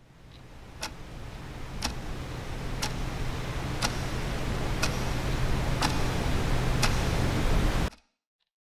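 A clock ticking once a second over a hiss and low hum that swell steadily louder, then everything cuts off suddenly just before the picture changes.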